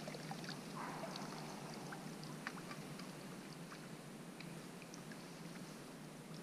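Faint irregular ticks and rustling from an angler handling his rod and landing net while playing a hooked pike, over a steady low hiss.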